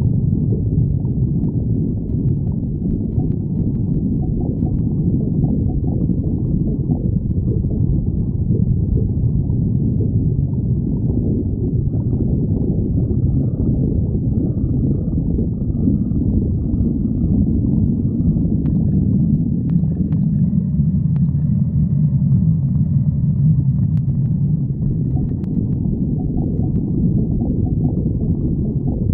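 A person's stomach growling: a continuous low rumbling gurgle, with thin higher squeaky tones coming and going through the middle stretch.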